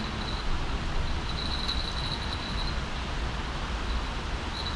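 Steady low rumble of road traffic, with a thin high trill that comes and goes.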